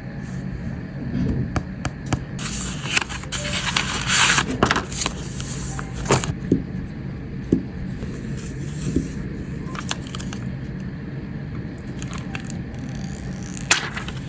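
Unboxing or screen-protector handling: scraping and crackling rustles of plastic film and packaging, with scattered clicks. A dense rustle is loudest from about two and a half to five seconds in, and a sharp click comes near the end over a steady low hum.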